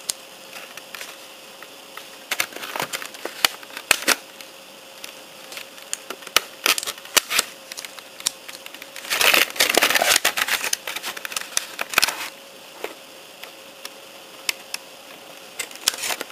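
Stiff clear plastic packaging being handled: a blister tray and a thin plastic bag crinkling and clicking in the hands. Scattered sharp clicks run throughout, with a longer burst of rustling about nine seconds in and a shorter one around twelve seconds.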